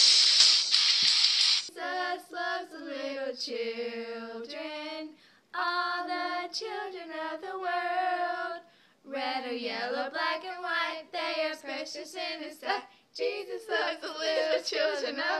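Girls singing unaccompanied, in held and sliding notes broken by short pauses. Before the singing, a loud rustling noise lasts the first second or two.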